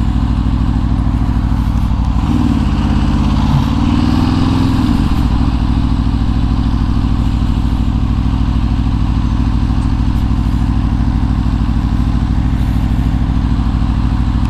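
Aprilia RSV4 1100 Factory's V4 engine running at low revs while riding slowly. The revs rise briefly about two seconds in, drop back a few seconds later, and then hold steady.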